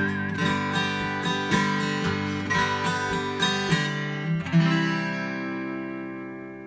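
Acoustic guitar strumming the closing bars of a folk song, ending on a final strummed chord about four and a half seconds in that rings on and slowly fades.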